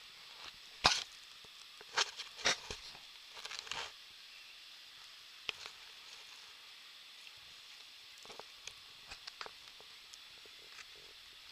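Handling noise: scattered faint clicks and rustles, several close together in the first four seconds and sparser later, over a steady high hiss.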